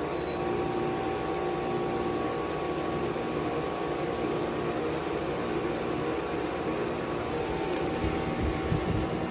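Heat pump unit running: a steady fan and compressor hum with a few constant tones. A couple of low thumps come near the end.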